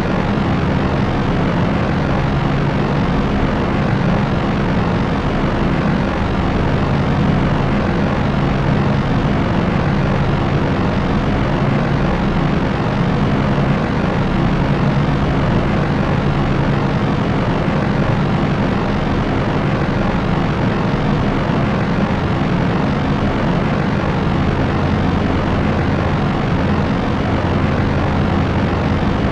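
Propellers of an Italian-built propeller aircraft running steadily: an unbroken drone with a low steady hum under an even rushing noise.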